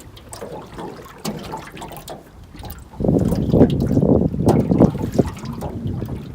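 Water splashing and lapping against the hull of a small boat out on the lake. It gets suddenly louder and choppier about three seconds in, then eases off near the end.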